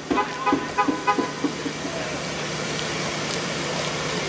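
A vehicle horn honking in a quick series of short toots for about the first second and a half, over a steady low hum of engines and traffic.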